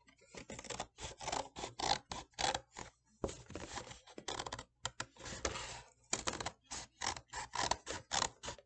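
Scissors cutting through the thin cardboard of a cereal box: a quick, irregular run of crisp snips and crackles of card, with a short pause about three seconds in.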